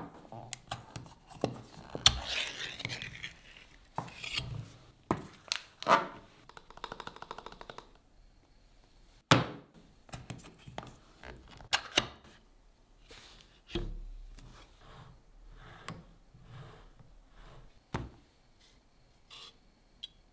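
Two ring-pull metal tins opened in turn: sharp clicks as the tabs are lifted and the seals pop, scraping and tearing as each lid is peeled back, and knocks of the tins and lids on the board.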